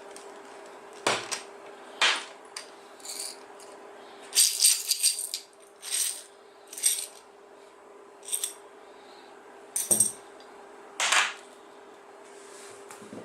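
Small metal tools and parts clinking and knocking, irregular and with a brief ringing, about a dozen times, over a steady low hum.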